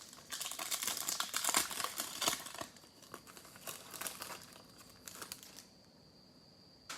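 Plastic trading-card pack wrapper crinkling and tearing as a pack is opened and handled. The crackle is densest in the first couple of seconds, then thins out and stops, with one short click near the end.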